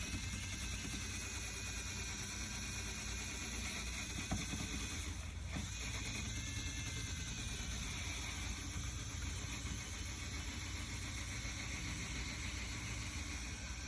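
Power sander running steadily against the painted metal of a vehicle hood, stripping old paint, with a brief knock about four seconds in.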